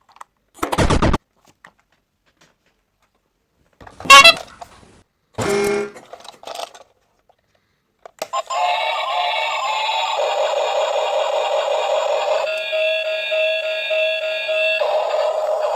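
A few short, separate electronic sound effects, the loudest about four seconds in, then from about eight seconds in a continuous synthesized tune of steady held tones.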